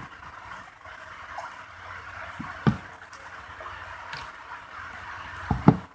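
Water running steadily, with a sharp knock about two and a half seconds in and two more near the end.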